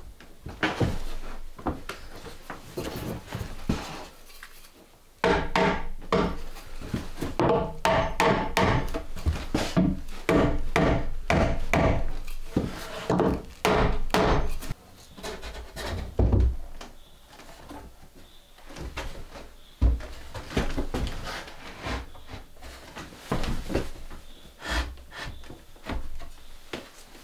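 Irregular knocking and rubbing, as of wooden objects being handled. The knocks come thick and fast from about five seconds in to about fifteen seconds, then more sparsely.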